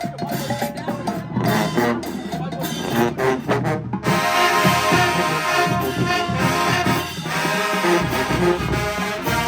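Marching band playing, the brass section carrying the tune over the drums; the sound grows fuller about four seconds in.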